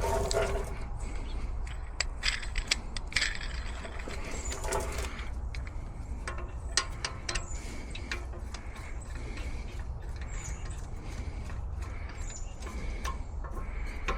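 Scattered clicks and metallic clinks of hand tools and brake parts being handled, over a steady low hum.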